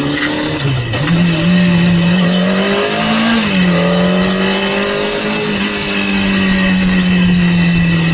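Sport motorcycle engine heard from on board, running in second gear at low, fairly steady revs. The note dips and picks up again about a second in, rises briefly and drops back around three seconds in, then holds steady.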